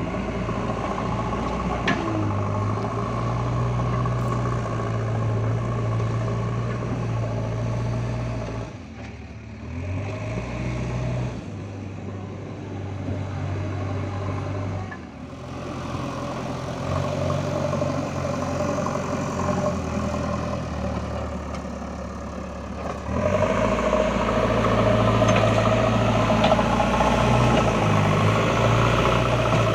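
Heavy diesel engine of earthmoving machinery running steadily under changing load. It drops back around 9 and 15 seconds in and gets louder about 23 seconds in.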